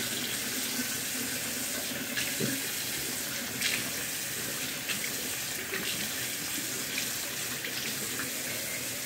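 Bathroom sink tap running steadily as water is splashed onto the face to rinse off a face mask, with scattered splashes from the hands.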